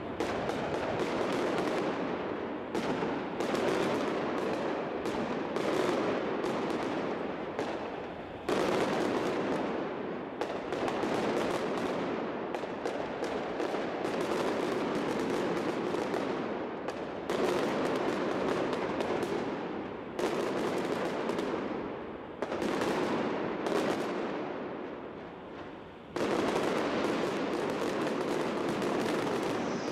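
Fireworks display: rapid, near-continuous bangs and crackling from bursting shells, coming in waves, with fresh volleys starting sharply about 8, 17, 20 and 26 seconds in.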